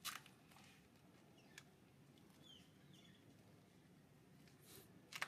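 Near silence: faint outdoor background with a few soft, brief scuffs, the loudest at the very start and near the end, and one faint short chirp about halfway through.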